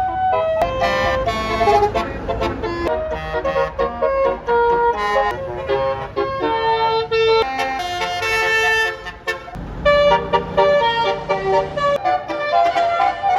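Bus telolet horn, a Basuri-type multi-tone musical air horn, playing a quick melody of changing notes, with a brief break about nine seconds in.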